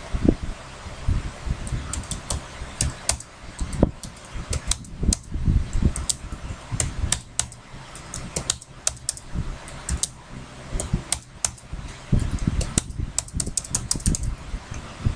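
Computer keyboard being typed on: quick runs of key clicks with short pauses between them, as commands are entered at a terminal.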